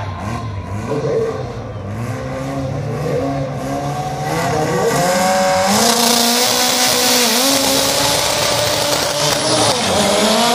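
Drag cars, one of them a Honda Civic hatchback, revving at the start line with the engine pitch rising and falling. About six seconds in, a loud rush of high-pitched noise starts as they launch, and near the end the engine pitch climbs steeply under hard acceleration.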